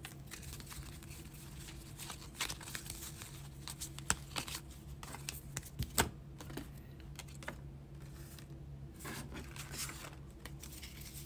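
Trading cards being gathered, squared into stacks and set down on a tabletop: faint scattered taps, clicks and light paper rustling.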